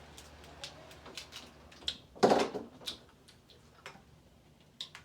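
Crab leg shells being cracked and handled: scattered sharp clicks and snaps, with one louder crunch about two seconds in.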